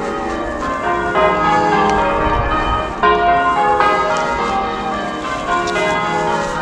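English church bells change ringing: a peal of several tuned bells struck one after another in shifting order, their tones overlapping as they ring on.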